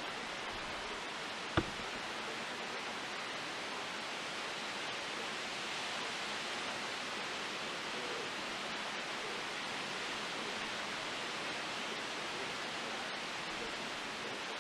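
Strong wind blowing through leafy trees: a steady rustling hiss of leaves, with one sharp click about a second and a half in.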